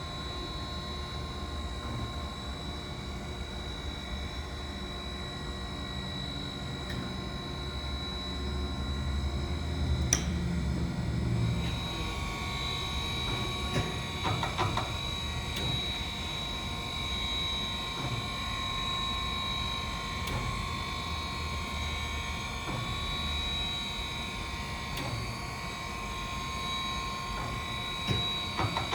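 Chevalier FSG-3A818 surface grinder running: a steady machine hum with high, steady whining tones. A sharp click comes about ten seconds in, and a few short clicks follow later.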